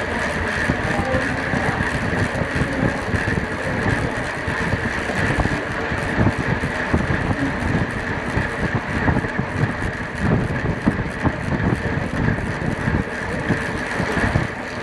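Wind buffeting a bike-mounted camera's microphone while a track bike rolls at about 25 mph, with tyre and drivetrain noise under a steady high whine.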